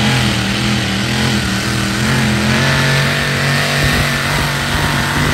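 Modified pulling tractor's engine running hard at high, steady revs as it drags the weight-transfer sled down the track; the note wavers slightly but holds.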